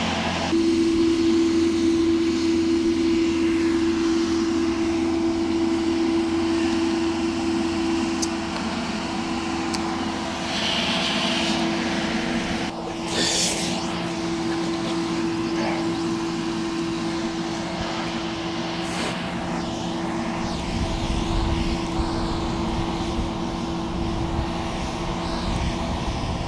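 A steady motor hum holding one pitch throughout, with a short burst of hiss about thirteen seconds in.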